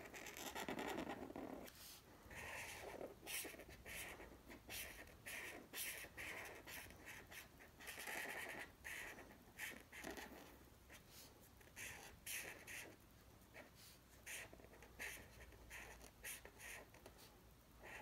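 A felt-tip marker scratches across paper in quick, irregular strokes while filling in an area with colour. It is faint, with a soft, lower rustle near the start.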